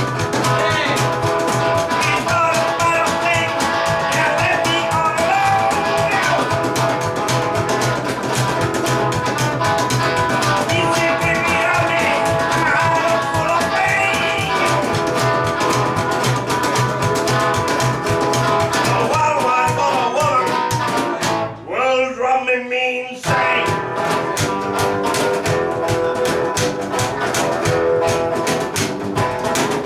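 Rock and roll band playing live: a hollow-body electric guitar through a small amp and an upright double bass, with many sharp percussive strokes in the beat. About two-thirds of the way through, most of the band drops out for a moment in a short break, then comes back in.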